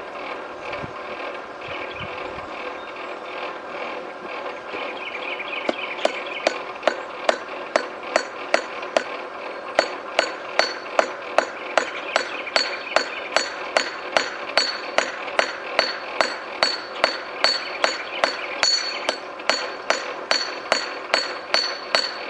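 Hand hammer striking red-hot high-carbon steel on a railroad-track anvil, forging the tip of a lathe side tool. The blows start about a quarter of the way in and settle into an even rhythm of about two ringing strikes a second, over a steady whir. This is the drawing-out stage, thinning and feathering the top of the bit.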